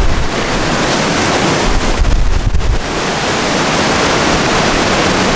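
Strong thunderstorm wind gusting: a loud, steady rush, with the wind buffeting the microphone in low rumbles near the start and again about two seconds in.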